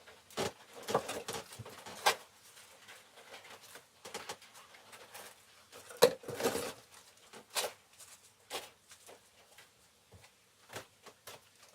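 Scattered light taps and rustles, a few each second or two with quiet gaps, from pea seeds and small seed-starting containers being handled.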